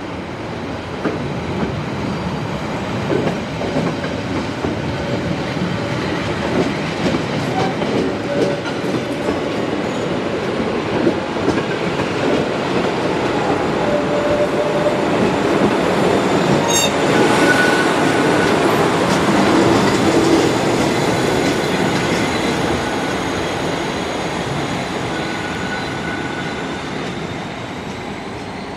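Matterhorn Gotthard Bahn metre-gauge train with a Deh 4/4 baggage railcar pulling out and passing close by. Wheels clatter over the rail joints and squeal thinly on the curves. It grows louder up to a peak about two thirds of the way in, then fades as the train goes away.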